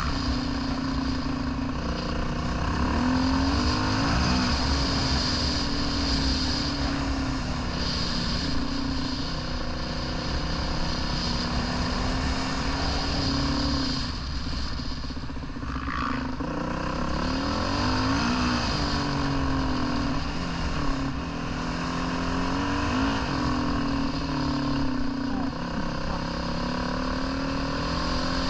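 Dirt bike engine running as it is ridden, its revs rising and falling again and again with throttle and gear changes, over a steady rushing noise.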